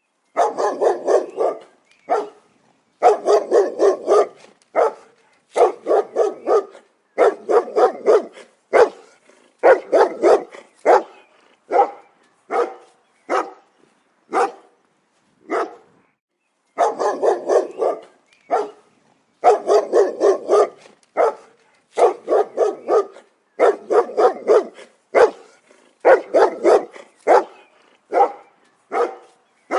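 A dog barking in quick volleys of several barks each, repeated every second or two with short pauses and a few single barks in between.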